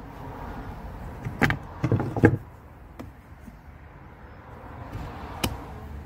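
Tools knocking and clunking against a thin galvanized steel can as its insulation lining is worked on: a quick cluster of sharp knocks about a second and a half to two seconds in, the loudest part, then single clicks near three seconds and again near the end.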